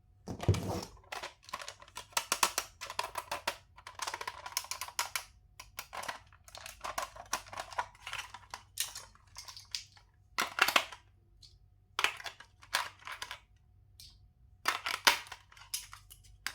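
Irregular bursts of rustling, clicking and clattering, like plastic toys and packaging being handled, with short pauses between bursts.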